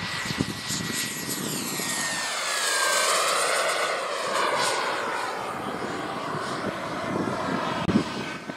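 Turbine-powered radio-control model jet flying past: a high turbine whine over a rushing jet noise, the whine dropping slightly in pitch as the aircraft goes by, loudest about three seconds in.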